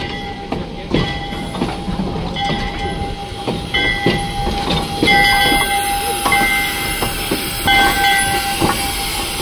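Small steam locomotive with its gondola car rolling slowly past at close range: irregular clicks and knocks from wheels and running gear, with a steady high-pitched tone running through much of it.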